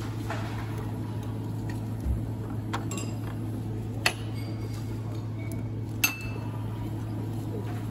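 A few sharp clinks of dishes or glassware over a steady low hum. The loudest clinks come about four and six seconds in, and the last one rings briefly.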